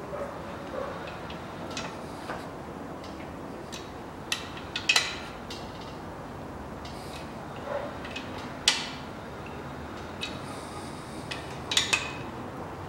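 Scattered sharp metal clinks and clicks of a wrench on the crankshaft main-bearing bolts as they are turned a further angle during engine assembly, the loudest about five, nine and twelve seconds in.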